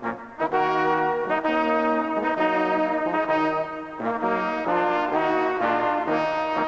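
Brass music: several brass instruments playing held chords together, each chord lasting about a second, with a short break around the middle.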